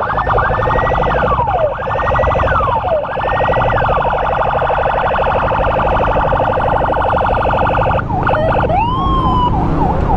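Electronic emergency sirens: a wailing tone that rises, holds and falls three times, about once every 1.4 seconds, over a rapid buzzing warble, then switching about eight seconds in to a fast yelp of quick repeated sweeps. A low rumble runs underneath.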